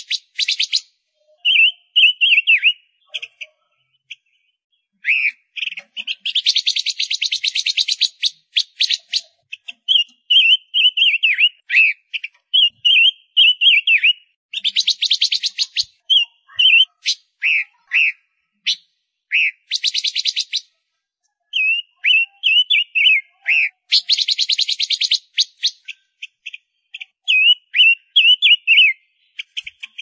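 Female red-billed leiothrix calling. Harsh, buzzy rattles of a second or two come again and again, alternating with runs of short, quickly slurred chirping notes.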